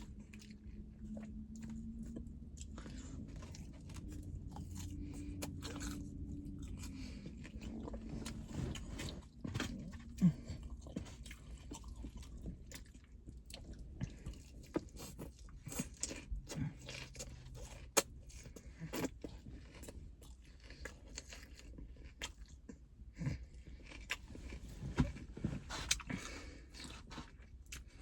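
A person chewing and biting food close to the microphone, with wet mouth clicks and crunches coming irregularly. A low steady hum runs under roughly the first third.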